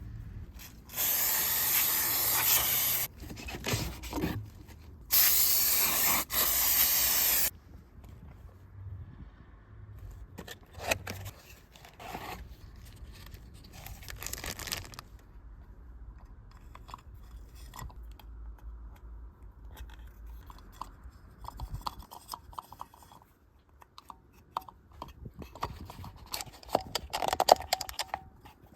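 Two hissing sprays of about two seconds each, close together, followed by quieter scattered scrapes and clicks of work under the car.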